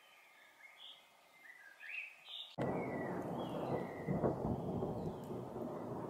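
Male common chaffinch chirping in short notes. About two and a half seconds in, a loud roll of thunder cuts in suddenly and rumbles on, swelling about a second and a half later and covering the bird.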